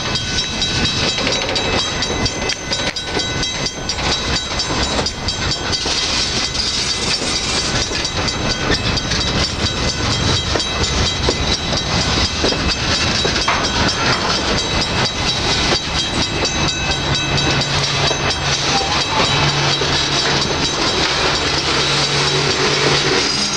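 Freight cars rolling slowly past during yard switching, their wheels clacking and rumbling over the rails, with steady high-pitched tones above the rumble. A low steady hum comes in over the last several seconds.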